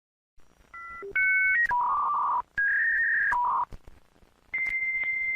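Dial-up modem connecting sound effect: a few short two-tone keypad dialing beeps, then warbling two-tone screeches in blocks, then a steady high whistle from about four and a half seconds in, joined by more warbling.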